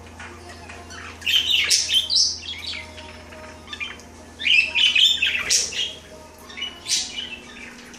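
Pet budgerigars chirping and squawking in three bursts of rapid, high warbling calls, the longest about a second in and again around the middle.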